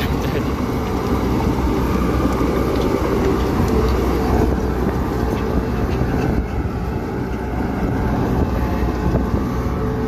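Komatsu D31P crawler bulldozer's diesel engine running steadily as the machine crawls over mud, with a dense rattle over a low rumble.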